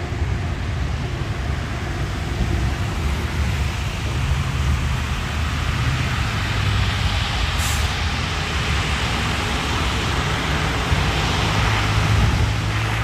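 Heavy road vehicle engine running amid steady rushing noise, with a short high hiss about seven and a half seconds in.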